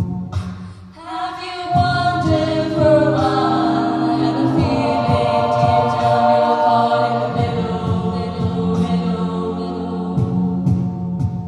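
A cappella vocal group of mixed female and male voices singing into microphones in close harmony, with no instruments. The sound thins briefly about a second in, then the full chord of held voices comes back in.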